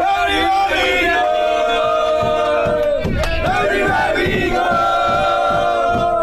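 A group of men chanting and singing loudly together, holding long notes, with shouts and a few thumps about halfway through.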